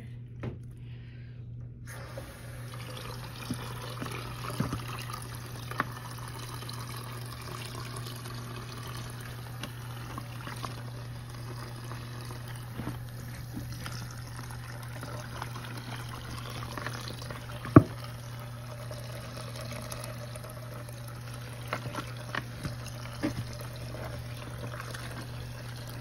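Water running into the tub of a mini portable washing machine, with wet clothes sloshing as laundry is pushed down into the soapy water. The steady running-water hiss starts about two seconds in, and a few sharp knocks break through it, the loudest about two-thirds of the way through.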